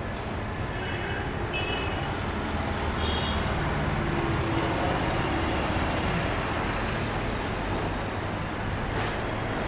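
Steady rumble of road traffic that swells slightly toward the middle and then eases off. A few short high chirps come in the first few seconds.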